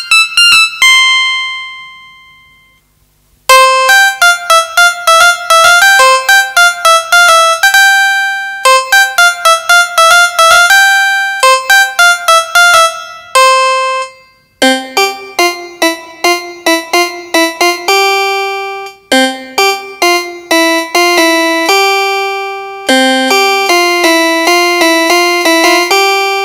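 Yamaha PSR-F51 portable keyboard playing a piano voice, a melody of separate notes, heard straight from its line output with no room sound. About a second in, a note rings out and fades almost to silence before the playing starts again. After a short break about halfway through, the notes move lower.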